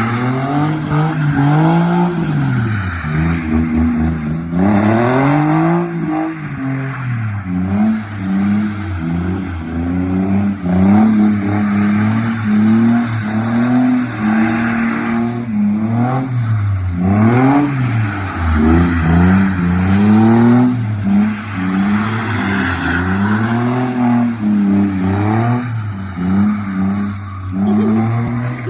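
Car engine revving up and down over and over under throttle, its pitch rising and falling every second or two.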